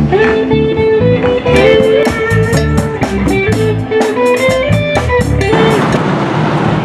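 Live band playing: an electric guitar picks out a melody over bass guitar and drums.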